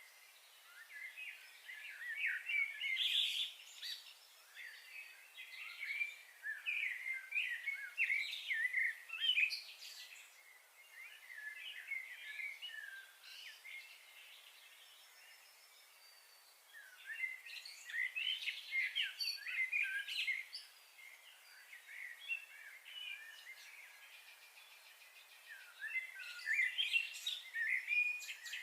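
Small birds chirping and twittering in busy spells of quick, short calls, with quieter lulls about halfway through and again about three-quarters of the way through.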